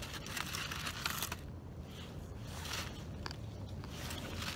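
Knife scraping and peeling at a charred, burnt crust on fire-cooked food, giving irregular dry crackles and crinkling scrapes.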